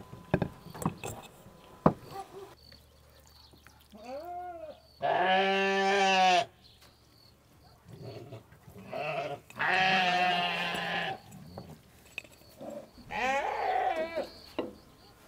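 A goat bleating three times, each call long and drawn out, a second and a half to two seconds. A few sharp clicks come in the first two seconds.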